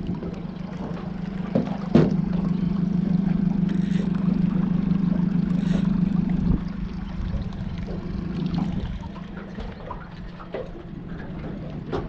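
Yamaha 60 outboard motor running at low speed with a steady low hum, louder from about two seconds in and easing off in the last few seconds. A sharp click sounds about two seconds in.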